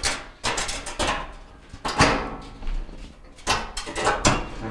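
Cooktop panel of a gas range knocking and rattling as it is lowered and seated onto its rear hinge points: a series of knocks, the loudest about two seconds in.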